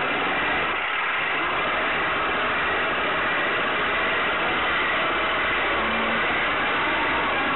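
Heng Long Tiger II RC tank driving, heard from on board: a steady mechanical whirring and engine-like drone from its drive motors and gearing.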